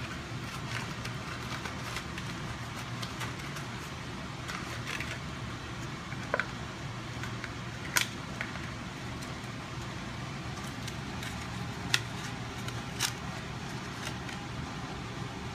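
Raisins shaken out of a small cardboard box into a mixing bowl: a few short, sharp clicks and taps from the box and spoon, loudest about eight and twelve seconds in, over a steady low hum.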